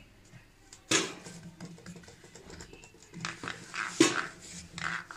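A palm rubbing oil over a plastic rolling board in quick swishing strokes, with bangles clicking and clinking against the board. A sharp knock about a second in.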